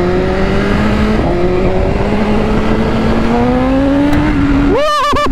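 BMW S1000RR's inline-four engine under hard acceleration, revs climbing steadily through a gear change about a second in. Near the end a brief, stuttering high-pitched tone cuts in.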